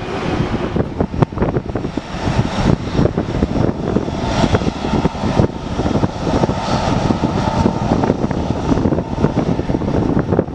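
Jet airliner engines running at taxi power, a steady, loud rush with a rough, gusty rumble underneath from wind buffeting the microphone.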